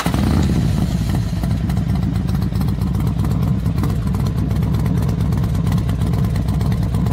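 Engine running steadily and loudly, with a fast, even pulse.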